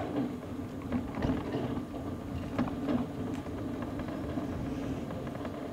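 A scooter running steadily along the path, its motor giving a steady low hum over the rumble of its wheels.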